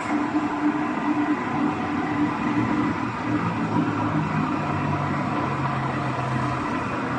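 Fan motor running steadily while being checked for balance: a continuous hum with a rough, rattly texture. A lower hum comes in about three and a half seconds in and stops shortly before the end.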